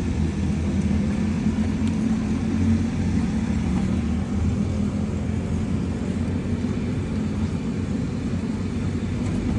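Race car engines idling, a steady low rumble.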